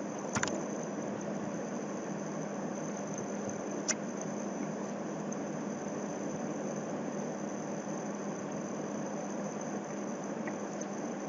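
Steady background hiss with a low hum and a thin high whine, the room and recording noise of a pause in narration, with two faint clicks, about half a second and about four seconds in.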